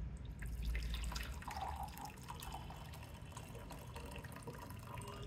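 Mutton broth trickling and dripping from a tilted pressure cooker pot into a small steel tumbler, faint.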